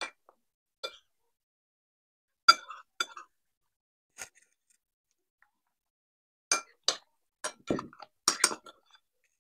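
Metal spoons clinking and scraping against ceramic bowls as two people eat: scattered single clinks, then a quick run of them in the last few seconds, with one duller knock among them.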